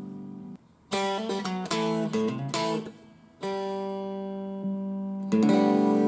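Guitar played through a BOSS eBand JS-10 amp: a chord dies away, then a short run of picked notes and strums, then ringing chords, with a louder strum near the end.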